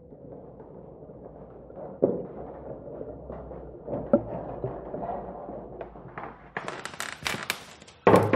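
China cups and saucers knocking and clinking, a few dull knocks, then a quick run of sharp clinks ending in a loud thump as a tea tray is set down on a table.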